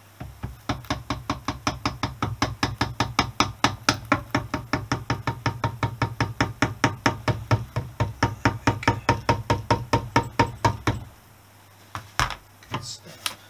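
Rapid, even tapping of a soft-faced plastic mallet on the aluminium generator side cover of a Honda XL250S engine, about five light taps a second, easing the cover onto the crankcase against the pull of the rotor magnets. The tapping stops about eleven seconds in, and a couple of small knocks follow near the end.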